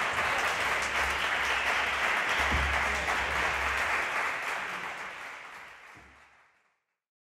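Concert audience applauding, the clapping fading out to silence over the last few seconds.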